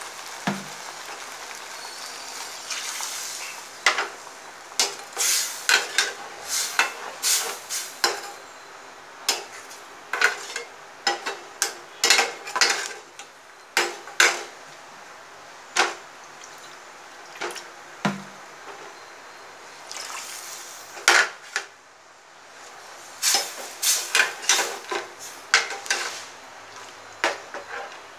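Metal slotted spoon clinking and scraping against the side of a metal pot in irregular bursts of sharp knocks while stirring a thick simmering tamarind-coconut gravy.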